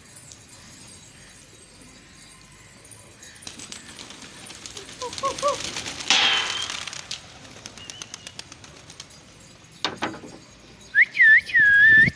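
A flock of domestic pigeons taking off together in a rush of flapping wings, loudest about six seconds in. A sharp knock follows near ten seconds, then a loud whistle of a few short rising-and-falling notes near the end.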